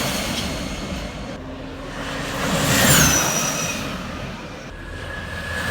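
Electric motorcycles passing at speed: a rush of noise that swells and fades, with a high motor whine that drops in pitch as the bike goes by. One passes about three seconds in, and another approaches near the end.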